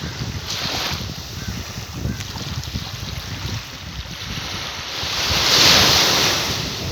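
Waves washing in with wind buffeting the microphone; one wave swells up and peaks about five to six seconds in.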